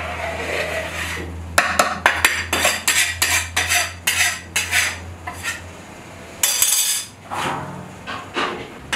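Metal skimmer scraping and tapping against the wall of a large plov kazan as the rice is worked, in a run of irregular sharp clinks. Near the end, a large metal bowl scrapes and knocks as it is set over the rice.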